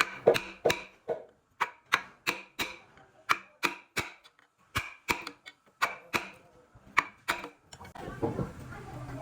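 Repeated sharp hammer blows on wood, about two to three a second with short pauses, typical of driving a chisel or knocking a joint together. Near the end the blows give way to a denser, continuous rough noise.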